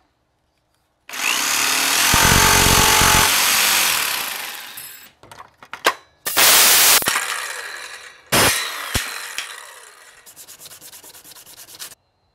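Electric power tools cutting a black micarta sheet, heard in several short bursts: a motor whine over loud cutting noise, then sharp clicks. Two later runs fade as the motor winds down, the last with a fast ticking that slows and dies away.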